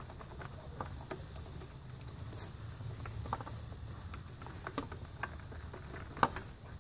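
Scattered light clicks and taps of hand tools working on the engine, irregular rather than a steady ratchet rhythm, with one sharper click near the end, over a steady low rumble.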